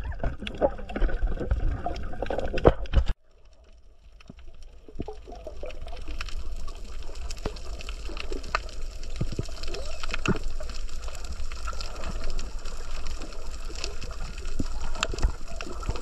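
Water sloshing and splashing close up, with a low rumble and dense clicks, cut off abruptly about three seconds in. After that comes a steady underwater hiss with scattered sharp clicks and crackles, building up over a couple of seconds.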